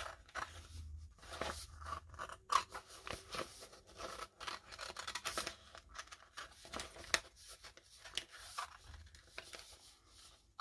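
Steel scissors snipping through a plastic-backed rub-on décor transfer sheet, in many short, irregular cuts.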